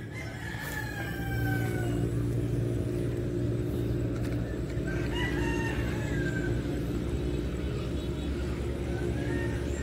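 Roosters crowing, faint, three times: once near the start, once about five seconds in and once near the end. A steady low hum runs under them.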